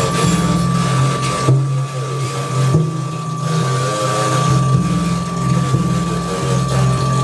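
Live electronic drone music: a steady high whine held over a low buzzing drone that steps between pitches, under a harsh noisy layer. The deepest bass drops out for a few seconds in the middle, then comes back.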